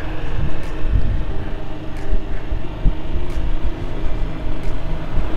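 Yamaha MT-07 parallel-twin engine running steadily while riding, with wind noise on the microphone.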